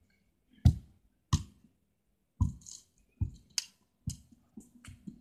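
About ten sharp knocks and thumps close to the microphone, coming at uneven intervals.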